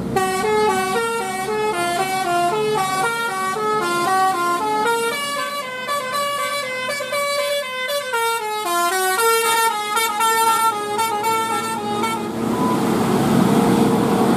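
Basuri "telolet" multi-tone bus horn playing a melody of short stepped notes for about twelve seconds, then stopping, leaving bus engine and traffic noise.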